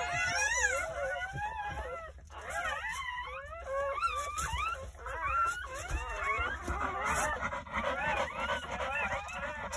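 Newborn Jindo puppies squealing and crying: many short, high-pitched cries that rise and fall, overlapping, thicker in the second half.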